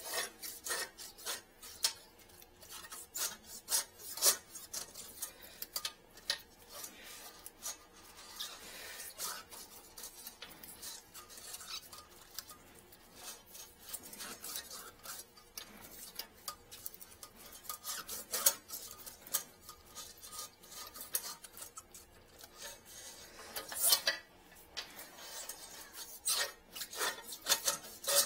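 Irregular scraping and rubbing with many small clicks: a thin wire fishing tool and camera cable being worked through a clogged toilet's trap. Several sharper scrapes stand out, near the start, about two-thirds of the way in and near the end.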